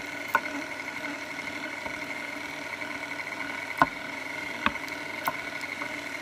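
KitchenAid stand mixer running its meat grinder attachment, a steady motor whine, with four sharp knocks as the wooden plunger is pushed down the feed tube; the loudest knock comes a little past halfway. The grinder has not yet taken hold of the oversized piece of turkey, so nothing is coming out.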